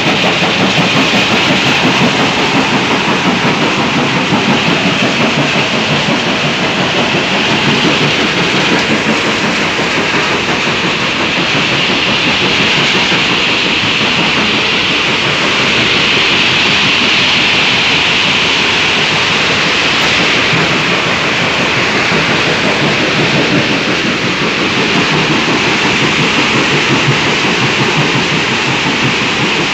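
Stone-crushing plant machinery running: a loud, steady clatter of stone passing through the feeder, jaw crushers and conveyors.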